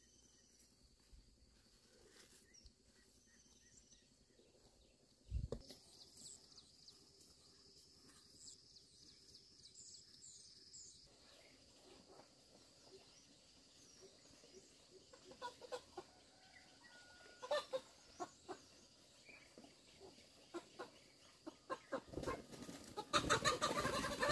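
Chickens clucking, sparse at first and getting louder and busier near the end, with small high chirps in between and a single thump about five seconds in.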